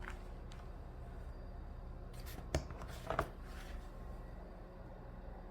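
A few short, soft clicks and rustles of handling, about two to three seconds in, over a low steady hum.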